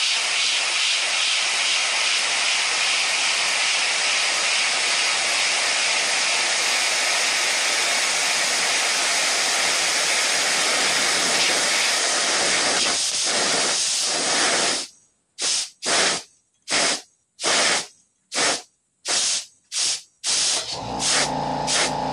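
Steady hiss of an air jet blowing to float a marble. About 15 seconds in it breaks into about seven short bursts with dead silence between them, and music starts near the end.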